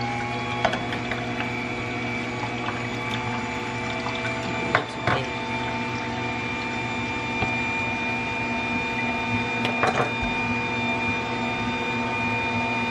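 Aobosi cold press slow juicer's motor running steadily, a constant low hum with a thin whine above it, as produce goes through it. A few sharp knife taps on a wooden cutting board around 5 and 10 seconds in.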